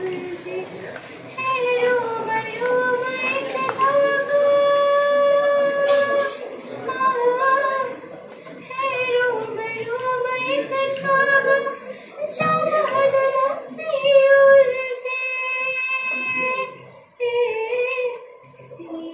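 A woman singing solo and unaccompanied: a slow melody with long held notes that waver slightly, and a short breath pause near the end.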